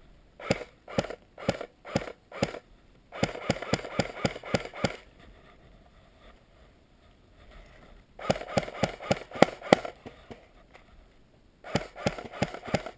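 Airsoft guns firing: a string of single shots about two a second, then three bursts of rapid fire with short pauses between them.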